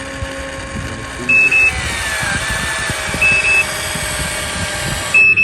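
Electronic reversing or warning beeper of a radio-controlled construction toy: a short high double beep about every two seconds, three times. Under it runs a steady background noise with a faint whine that slides down in pitch about two seconds in.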